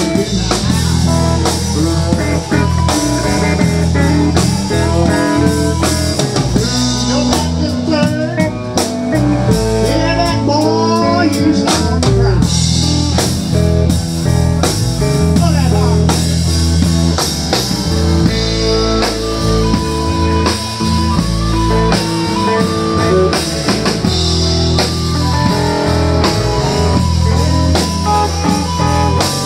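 Live electric blues band playing: electric guitars, bass guitar and drum kit, with a harmonica played into a microphone and bending notes.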